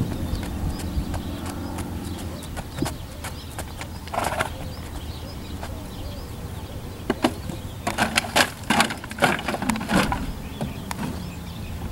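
A mule's hooves trampling empty plastic bottles in a wooden box, making a run of loud, sharp crunches and crackles for about three seconds near the end, after a single short crackle a few seconds earlier.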